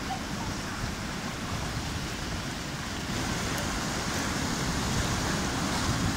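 Ocean surf washing in over and around low shoreline rocks: a steady rush of water that grows a little louder about halfway through.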